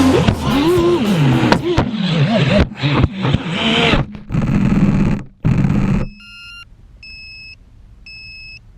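Rock music that cuts off about six seconds in, followed by an electronic beeper sounding short two-tone beeps about once a second.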